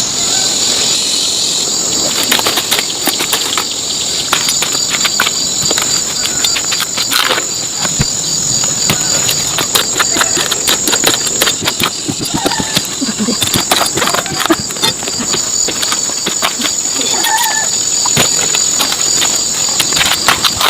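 Steady high-pitched insect chorus, with many irregular crackles, clicks and knocks over it from about two seconds in.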